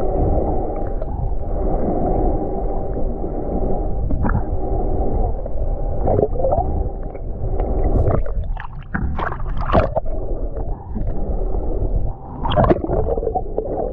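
Boat engine running at idle with water sloshing against the hull. In the second half, several short knocks break through.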